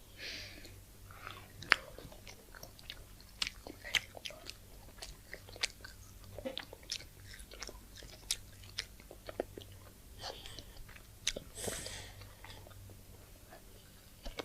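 Close-up chewing and biting of crunchy food: a steady run of irregular sharp crunches and mouth clicks, several a second.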